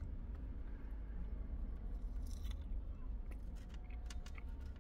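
A person biting into and chewing a barbecued pork rib, with scattered wet mouth clicks from about halfway through, over a steady low rumble.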